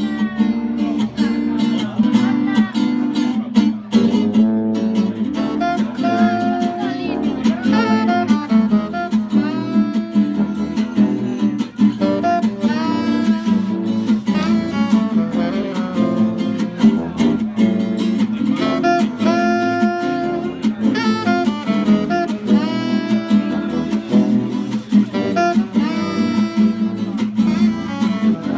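A gypsy-jazz trio playing live: an acoustic guitar strumming the rhythm, a tuba holding the bass line, and an alto saxophone coming in on the melody a few seconds in.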